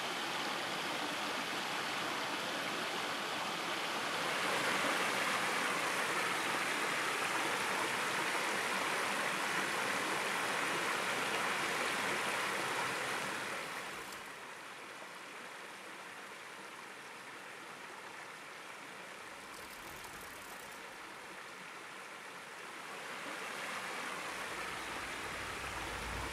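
Running water of a stream, a steady rushing. It drops noticeably quieter about halfway through.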